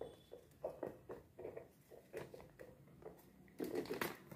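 Faint rustling and creasing of a sheet of origami paper being folded by hand: a scatter of short, soft scrapes, a little louder near the end.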